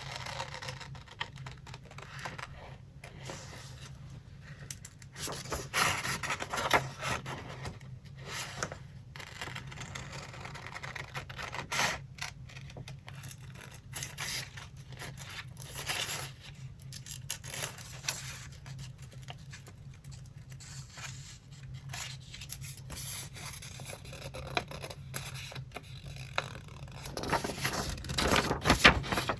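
Paper and sticker sheets handled by hand for a collage: irregular scraping, rubbing and rustling with small clicks and taps, busiest near the end.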